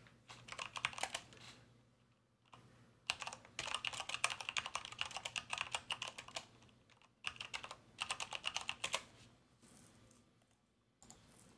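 Typing on a computer keyboard: quick runs of key clicks in three bursts with short pauses between them, as a web search is typed in.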